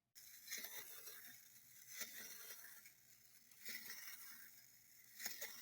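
Wind-up toy crab's clockwork spring motor running after being wound: a continuous whirring rattle that starts suddenly, with a louder clatter about every second and a half.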